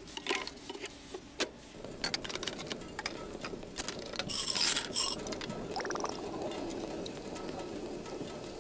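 Scattered clicks and clinks of objects being handled, over a steady low hum, with a short hissing burst about halfway through.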